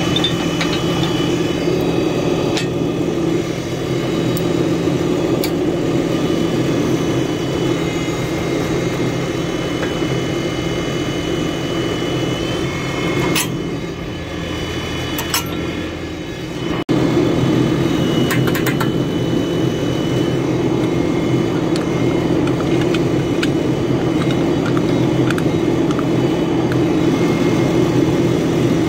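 Tractor engine idling steadily, with a few sharp metallic clinks from work on the three-point linkage.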